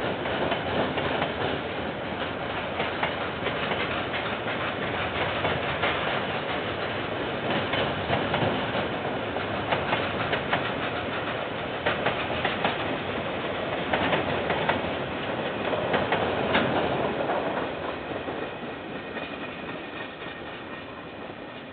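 A freight train's wagons rolling past on the rails, wheels clicking over the track joints. The sound fades over the last few seconds as the end of the train passes.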